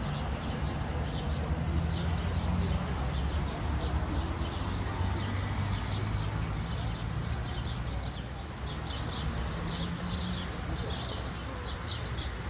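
City street ambience: traffic running with a steady low engine hum, and birds chirping in the trees over it, most busily in the second half.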